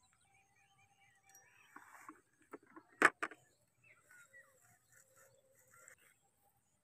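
Quiet open countryside with faint bird calls, broken about three seconds in by a sharp knock and a smaller one right after, with soft rustling of handling before and after.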